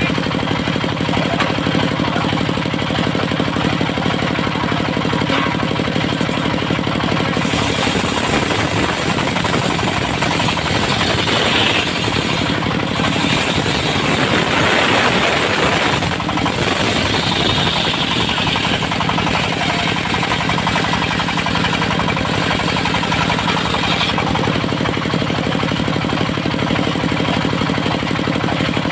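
Engine-driven circular-saw sawmill running steadily. From about a quarter of the way in until near the end, the spinning blade cuts through dry, tough teak, adding a loud cutting noise that is strongest in the middle.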